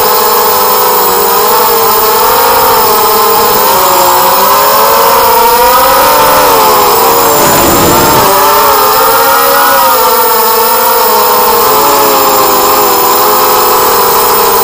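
A 180-size FPV racing quadcopter's four DYS BE1806 2300kv brushless motors spinning HQ 4045 bullnose props, heard on the onboard camera: a high whine whose pitch keeps rising and falling with the throttle. About eight seconds in the pitch drops and swoops back up under a rush of wind noise as the quad banks hard.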